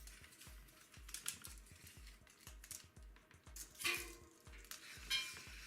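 Soft handling clicks and rustles while a keyboard cable is measured out, with two brief louder clatters about four and five seconds in. Faint background music with a low pulse about twice a second runs underneath.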